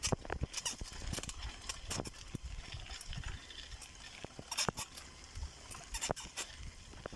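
Irregular sharp clicks and knocks, several a second, over a low rumble: a bicycle jolting and rattling on a rough dirt road.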